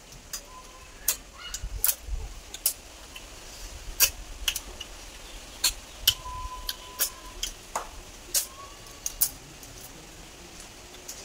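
Snail shells and fingers clicking sharply and irregularly against a steel plate while cooked snails are eaten by hand, about one or two clicks a second.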